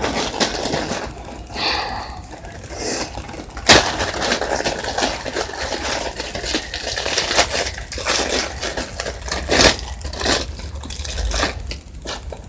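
Close handling noise: irregular crackling and clicking, with two sharper snaps, one nearly four seconds in and one nearly ten seconds in.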